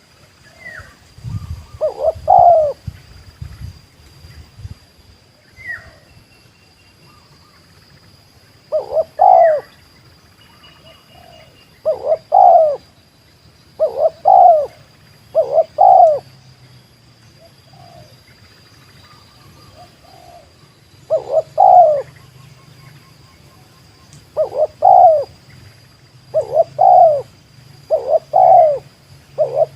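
Spotted dove (tekukur) cooing: phrases of two or three short rising-and-falling coos, repeated every few seconds and coming faster near the end. Faint higher chirps of other birds sound between the phrases.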